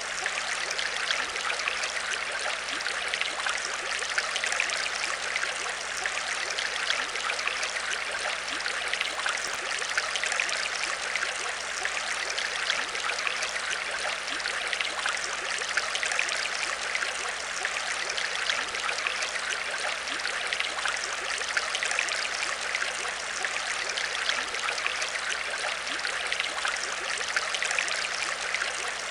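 Aquarium water trickling and bubbling steadily, with a faint steady hum underneath.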